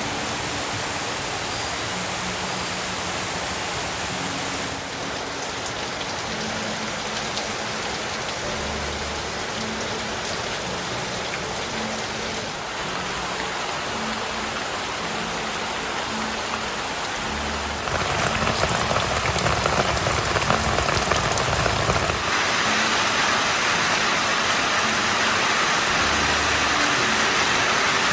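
Steady rain falling, heavier and louder from about 18 seconds in.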